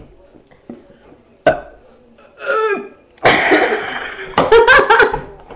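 A sharp knock, then a girl's short vocal sound and a loud, rough, breathy vocal outburst in the last two seconds, with coughing and laughing in it, during attempts to burp on purpose.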